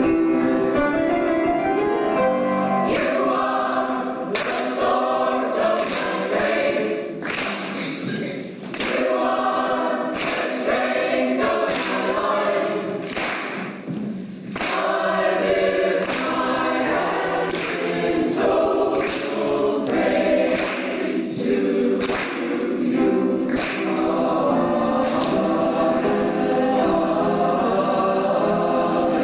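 Mixed choir of women's and men's voices singing together, with a couple of brief breaks between phrases.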